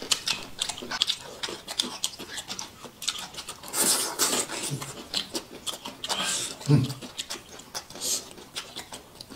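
Close-up eating sounds of boneless chicken feet in sauce being chewed: irregular wet clicks and smacks, with two longer sucking slurps about four and six seconds in and a brief hum near the end.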